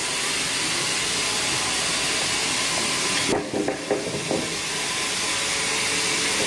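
Band sawmill blade running through a teak log, a steady hiss of sawing. About three and a half seconds in comes a brief clatter of knocks, after which the steady sawing continues.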